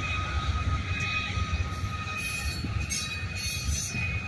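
Loaded ballast hopper cars rolling slowly past: a steady low rumble from the wheels on the rails, with a faint steady high squeal running through it.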